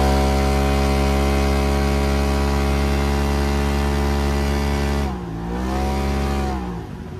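Polaris RZR Pro XP turbo's twin-cylinder engine at wide-open throttle, its pitch held steady and high as the CVT keeps the revs constant while the machine accelerates. About five seconds in the throttle comes off and the revs drop, pick up briefly, then fall away again near the end.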